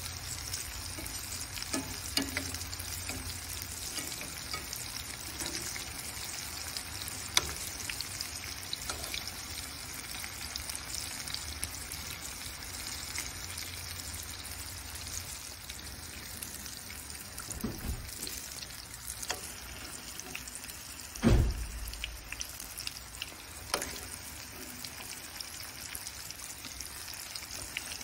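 Battered yellow squash and onion chunks deep-frying in hot oil in a cast iron skillet: a steady sizzling crackle, with scattered sharp clicks and one loud thump about three-quarters of the way through.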